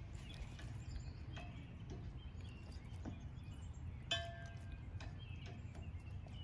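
Outdoor ambience: a steady low wind rumble with a few faint clicks, and a short bird chirp about four seconds in.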